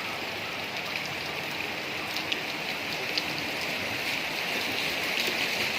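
Steady hiss of water, with a few faint sharp ticks scattered through it.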